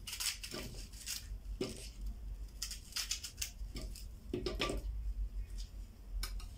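Kitchen knife cutting pieces off an onion held in the hand: a run of short, irregular crisp cuts.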